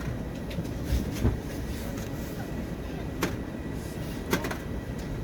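Airliner cabin ambience during boarding: a steady low rumble with scattered clicks and knocks, and faint voices in the background.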